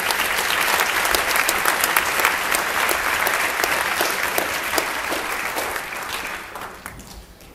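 Audience applauding at the close of a talk, a dense clapping that fades away near the end.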